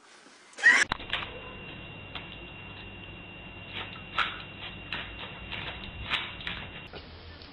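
A brief loud burst about a second in, then light scattered ticks and taps from a puppy's claws and paws working on a doormat and tile floor. Under them runs a steady low hum and a faint steady high tone.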